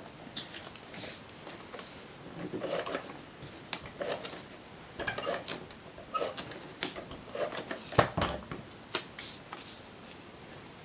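Cardstock being handled and slid on a cutting mat, with the short rasps and clicks of an ATG adhesive tape gun laying tape on paper. Scattered clicks and taps throughout; the sharpest comes about eight seconds in.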